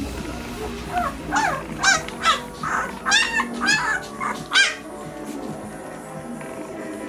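Four-day-old German Shepherd puppies squealing and whining: a quick run of short, high-pitched cries, each rising and falling in pitch, that dies down about five seconds in.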